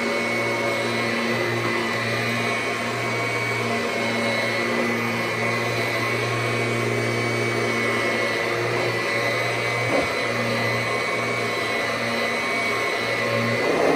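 1999 Kirby G6 upright vacuum running steadily over carpet: a constant motor hum with a high fan whine above it. It has a brand-new fan kit fitted in place of a heat-warped fan, and it now sounds normal. There is one small tick about ten seconds in.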